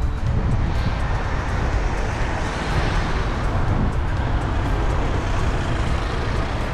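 City road traffic: cars and vans driving along the avenue, heard from a bicycle riding in the bike lane, under a heavy low rumble. A passing vehicle grows louder around the middle.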